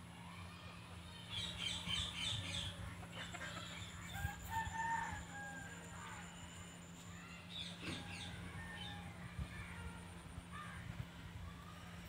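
Rooster crowing, with other birds calling around it: a rapid chattering call, then a longer pitched crow about four seconds in, then another chattering call near the middle.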